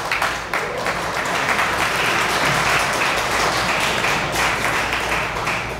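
Large crowd applauding steadily, the clapping thinning out near the end.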